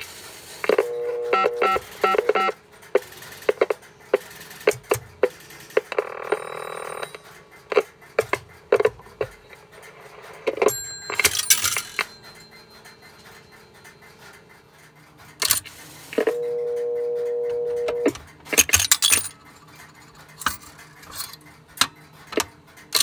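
Telephone-line tones from a Western Electric 1234G touch-tone payphone heard over a monitor speaker: a quick run of short beeps about a second in, a buzzy tone around six seconds, and a steady tone held nearly two seconds past the middle, among scattered clicks.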